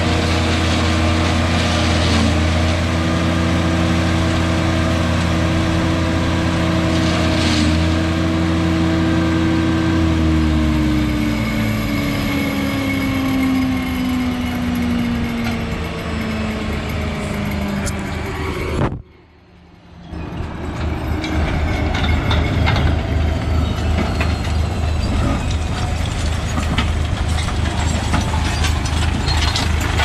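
Engine of a horse-drawn silage harvester running steadily, then slowing with its pitch falling. After a short break about 19 seconds in, an engine runs with a rougher, rapidly pulsing chug.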